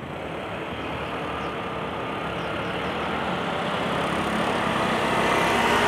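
Vehicle noise on a street: a steady rushing hum that grows gradually louder.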